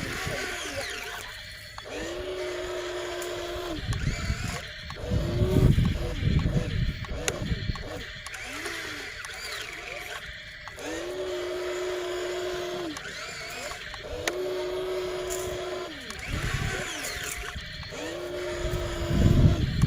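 Excavator working, its hydraulics whining in repeated steady spells of about two seconds. The pitch bends up as each spell starts and down as it stops, with low engine rumble between.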